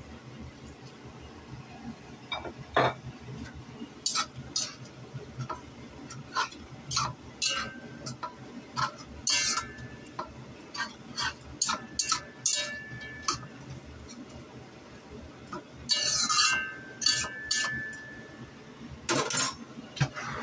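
Metal spatula clinking and scraping against a wok while food is stir-fried, in irregular sharp knocks, some of them ringing briefly. About sixteen seconds in there is a denser second of scraping and clatter.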